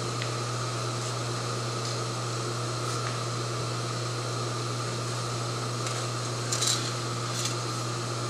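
An RDO LC series induction melting system runs with a steady hum and a higher steady whine as it starts heating a crucible of copper. About six and a half seconds in there is a brief metallic clatter, with a smaller one a second later, as a pair of crucible tongs is set down.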